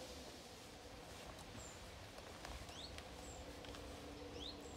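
Juvenile chiffchaff calling: two faint, short, rising call notes about two seconds apart, with thin, higher, falling notes between them over a low outdoor noise.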